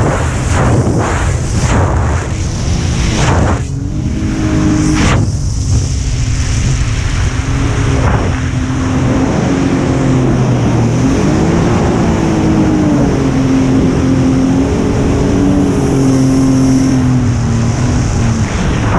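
Yamaha Wave Raider's 701 two-stroke twin engine running under way on the water, its pitch rising and falling with the throttle, over the rush of water and wind.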